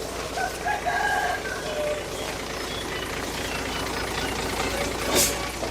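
Diesel engine of heavy earth-moving machinery running steadily at a distance, with a single sharp knock about five seconds in.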